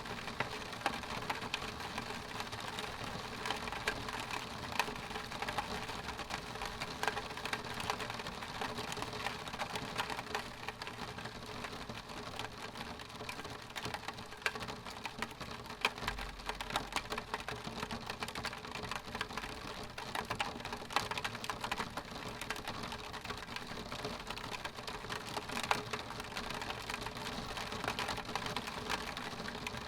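Rain pattering against a window pane: a steady hiss of rain with dense, irregular taps of drops hitting the glass.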